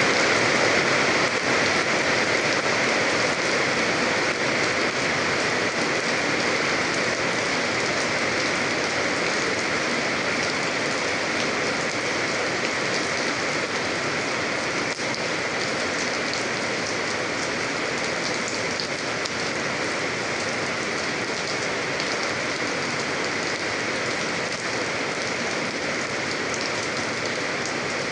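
Steady rain falling, a dense even hiss with fine drop patter, easing slightly in level over the stretch.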